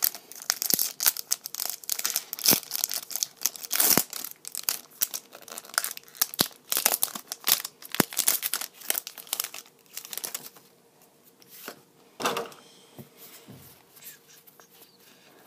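A Pokémon trading card booster pack being torn open: its foil wrapper crinkles and tears in a rapid, dense run of crackles for about ten seconds. After that it goes much quieter, with a few soft rustles as the cards are slid out and fanned through.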